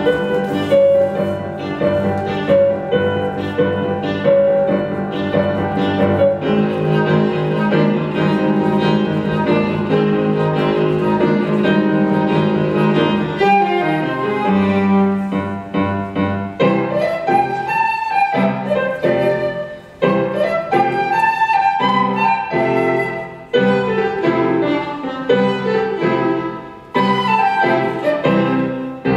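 Chamber music for piano, flute and viola. The first half is a dense, sustained passage; after about 16 seconds it breaks into short rising and falling phrases with brief pauses between them.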